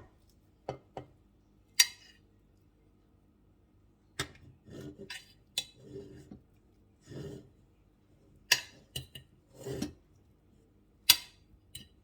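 A utensil clinking against the pressure cooker's pot and a plate as cooked chicken pieces are lifted out: about a dozen sharp, irregular clinks, with softer scraping and handling noises in the middle stretch.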